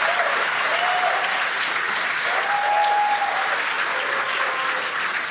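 Large crowd applauding and cheering steadily, with a few drawn-out shouts over the clapping.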